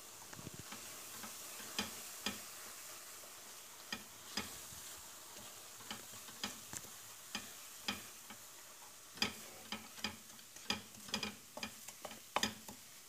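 Wooden spoon stirring and scraping crumbled umaç dough and flour as they roast in butter and oil in a steel pot: irregular clicks and scrapes of the spoon against the metal over a faint steady sizzle. The clicks come more often in the second half.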